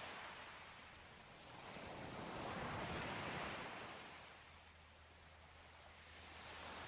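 Sea surf washing in and drawing back in slow swells, one peaking about three seconds in and another rising near the end.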